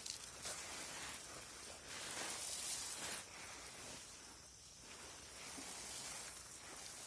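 Water sprinkling from a watering can's rose onto leafy seedlings and the soil in plastic nursery bags: a soft, even patter of spray that swells and eases.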